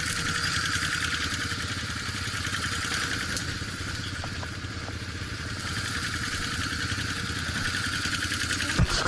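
Off-road vehicle's engine running steadily at low speed, with a sharp knock near the end.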